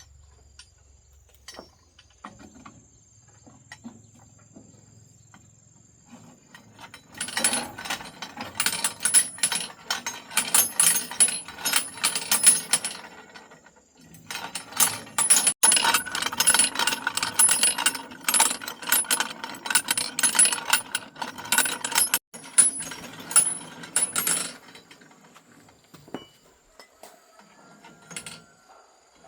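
Rapid metallic clicking and rattling of hand tools on machine parts, in two long runs of several seconds each with a short break between.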